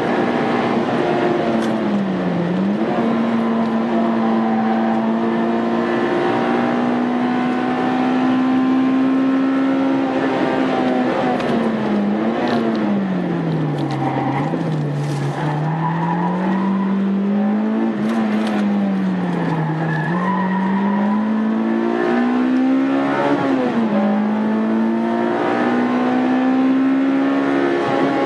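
Honda Integra Type R four-cylinder engine driven hard on a race circuit. Its pitch climbs steadily through the gears, drops sharply at each shift, and falls in long slides under braking before rising again.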